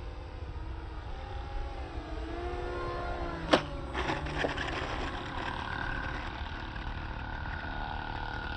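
Small brushed electric motors of a twin-motor RC foam plane whining, their pitch rising and falling, over low wind rumble on the microphone. A sharp knock comes about three and a half seconds in, followed by a few lighter clicks.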